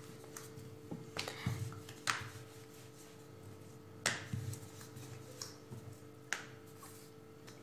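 Rolling pin working a stuffed paratha on a round rolling board: faint rolling and rubbing with a few sharp knocks and taps as the pin and the dough are handled, over a steady faint hum.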